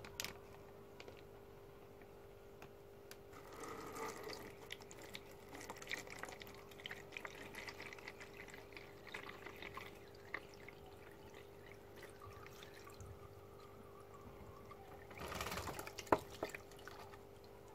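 Water trickling faintly from a plastic fish bag into a plastic bowl, unevenly. It swells into a short, louder pour with a small knock near the end as the last of the water and the fish tip out.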